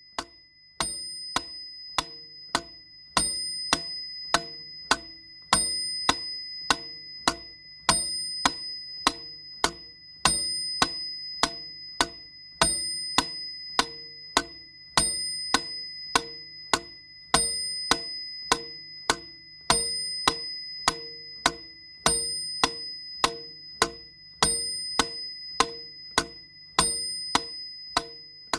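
Steady mechanical ticking, about two to three ticks a second, with a bell-like ding every two seconds or so that rings and fades, over a low steady hum.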